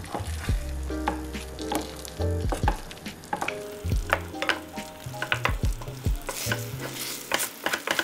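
Wooden spatula stirring and scraping chicken pieces through sticky teriyaki sauce in a frying pan, in many quick strokes over a soft sizzle. The sauce is thickening over low heat.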